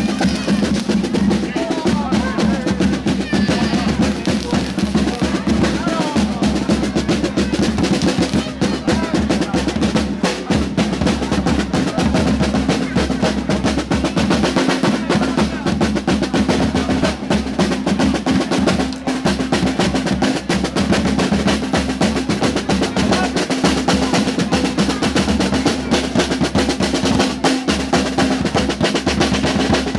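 A street drum group playing fast, continuous rhythms on marching drums struck with sticks, over a steady deeper drum tone.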